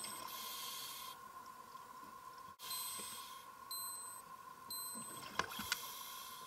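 Underwater sound of a diver's scuba regulator: hiss with each inhaled breath lasting about a second, and a few bubble clicks and crackles near the end, over a steady tone.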